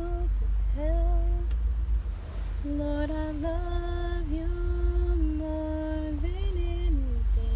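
A woman singing slow, drawn-out notes of a worship song with no clear words, one melodic line with each note held about a second and sliding into pitch, dropping lower near the end. A steady low rumble of the car runs underneath.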